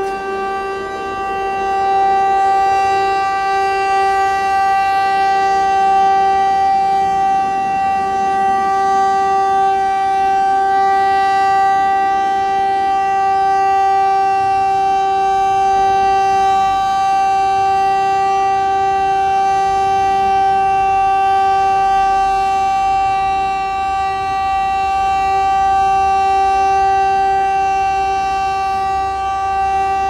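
Federal Signal Model 2 rotating outdoor warning siren sounding its full-alert steady tone at full speed: one steady low pitch held throughout, swelling and fading slightly in loudness. Low traffic rumble rises underneath near the end.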